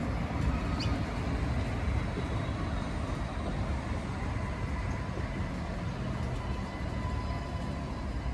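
Alstom Citadis light rail tram running along the track, a steady low rumble with a faint steady whine above it.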